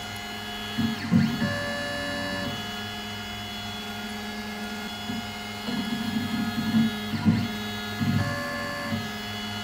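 X-Carve's NEMA 23 stepper motors whining steadily as they drive the carriage back and forth along a test line while the driver current is being tuned. They give several pitched tones that jump to new pitches when a move changes, with rougher low-pitched stretches about a second in and again from about six to nine seconds.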